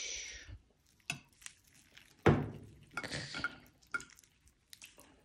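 A spoon clinking and scraping against a bowl as a rice bowl is mixed and eaten, with scattered sharp clicks and one louder knock about two seconds in.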